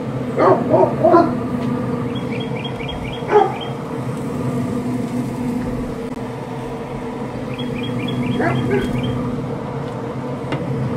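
A Traeger pellet grill's fan runs with a steady hum while a dog barks in short bursts: a few barks about a second in, one at about three and a half seconds and one more after about eight seconds.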